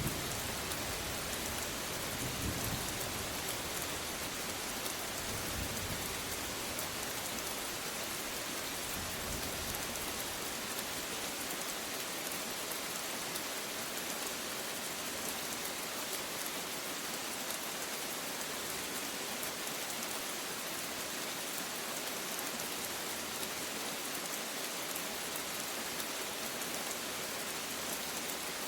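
Steady rain falling, with low rolls of distant thunder in the first several seconds that die away, leaving the rain alone.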